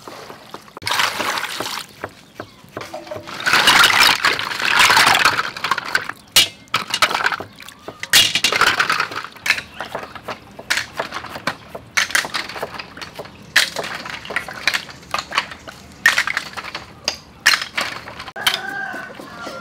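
Water poured from a plastic dipper into a metal bowl of sea snails, sloshing over the shells, then many sharp clicks as the snail shells are rubbed and washed by hand, mixed with a knife chopping on a wooden cutting board.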